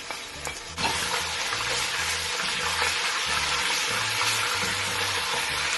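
Ginger and garlic paste hitting hot frying oil in a pan: a loud sizzle that starts suddenly about a second in and then holds steady. A few light clicks come just before it.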